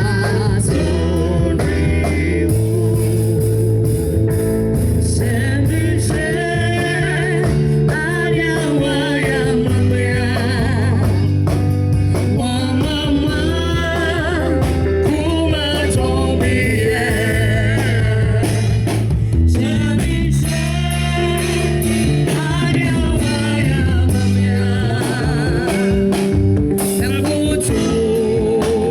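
A band playing with a singer, in a gospel-like style: the voice holds notes with wide vibrato over sustained bass notes, guitar and drums.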